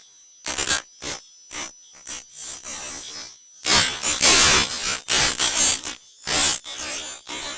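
A person imitating a dog's sneezing fit with their voice: a rapid string of short, breathy sniffs and snorts, with longer, louder sneeze blasts about halfway through and again near the end.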